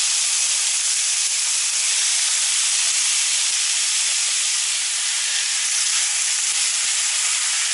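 Raw pork pieces sizzling in hot oil in a nonstick frying pan as more pieces are laid in: a steady, even hiss.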